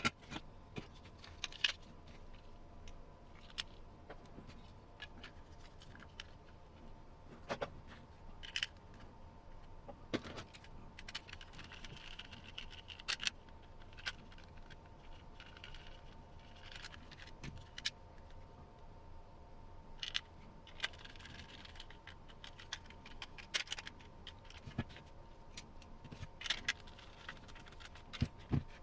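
Small plastic kit parts and metal screws being handled and fitted together: scattered light clicks, taps and scrapes at irregular intervals.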